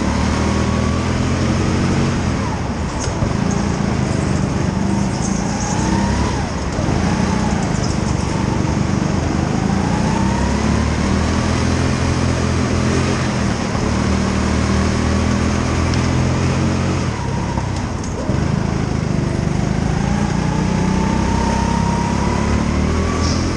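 Go-kart petrol engine heard onboard, its note repeatedly picking up and falling away as the kart accelerates and slows, with a thin higher whine that climbs each time it picks up speed.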